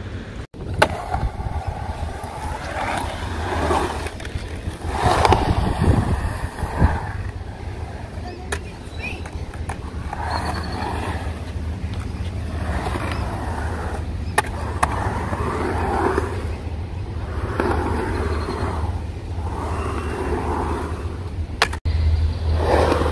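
Skateboard wheels rolling over a concrete bowl: a steady rumble that swells and fades as the board carves, with a few sharp clicks along the way.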